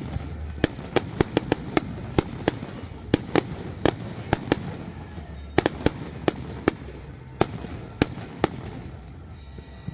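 Fireworks going off: a run of sharp, irregular cracks and pops, about two or three a second, thinning out near the end.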